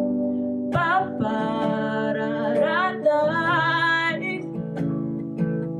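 Acoustic guitar strumming chords, with a woman's voice singing a wordless, wavering run from about a second in for about three seconds.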